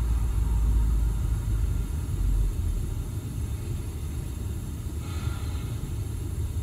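Low rumble, loudest in the first two or three seconds and then easing.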